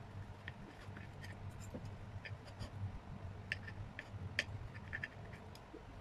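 Knife and fork clinking and scraping against a plate while cutting soft egg-soaked bread: scattered faint clicks, the sharpest about four and a half seconds in, over a low steady hum.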